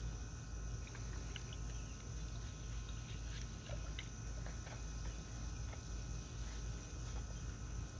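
Faint wet dabbing and light ticks of a paintbrush working in a basin of acid-etching solution over an axe head, over a steady low hum.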